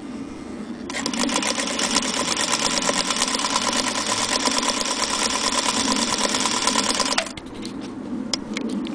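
Singer Featherweight 221K sewing machine running steadily at speed and stitching through fabric: the electric motor's whine under a rapid, even needle clatter. It starts about a second in and stops abruptly near the end, followed by a few light handling clicks.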